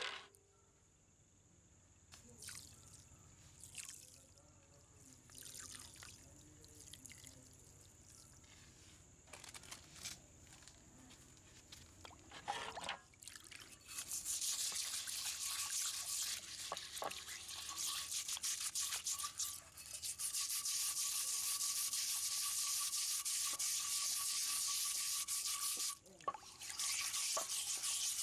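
Wire brush scrubbing rust off a rusty antique charcoal iron under water in a basin, a steady, loud hissing scrape that starts about halfway through and breaks off briefly near the end. Before it, only quiet drips and small splashes of water.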